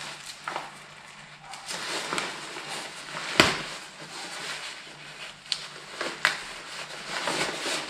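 Textile motorcycle jacket rustling as it is put on and its arms adjusted, with a few sharp clicks, the loudest about three and a half seconds in.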